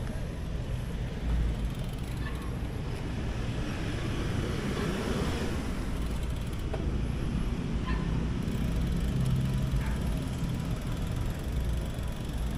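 Wind rumbling on an action camera's microphone with road noise from a moving road bike, and a car passing around four to six seconds in.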